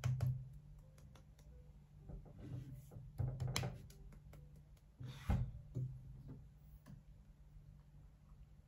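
A hand slapping a forehead several times, short soft smacks spaced irregularly over a low steady hum.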